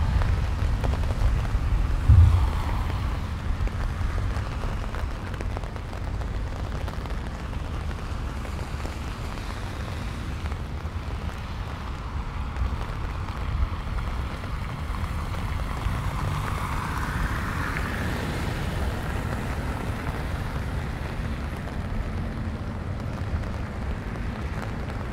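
Wind buffeting the microphone in an uneven low rumble, with a stronger gust about two seconds in, over the hiss of rain.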